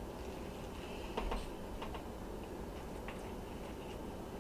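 A handful of light clicks of a utensil against a metal serving tray as spaghetti is scooped out, most of them between one and two seconds in.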